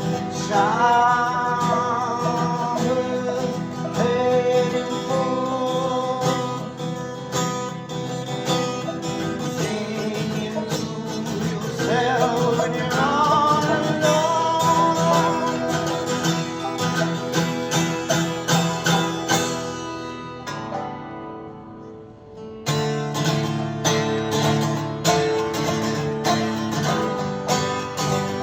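Acoustic duo playing an original bluegrass-style tune, led by a picked acoustic guitar, with a melody line that slides between notes. About three-quarters of the way through, the music thins and drops briefly, then comes back in fuller.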